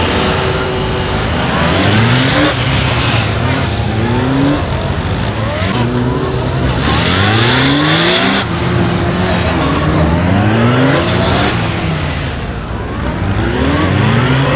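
Honda police motorcycle engine revving up and dropping back again and again, climbing in pitch every second or two as the bike is ridden hard through a tight course of turns.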